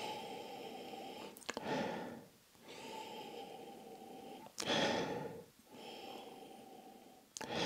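A man breathing in and out through his nose with his nose in a whisky nosing glass, smelling the whisky. A series of soft drawn-out breaths, with two stronger sniffs about two seconds in and again after about four and a half seconds.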